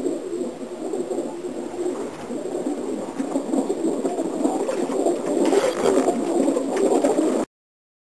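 A loft full of Greek wuta pigeons cooing, many birds at once in an overlapping murmur that grows a little louder, then stops abruptly about seven seconds in.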